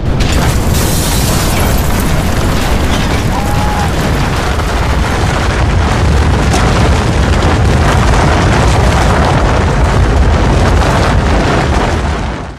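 Film explosion effect for a mountain blowing up: a sudden loud blast that runs straight on into a long, heavy rumble of collapsing rock, fading out just before the end.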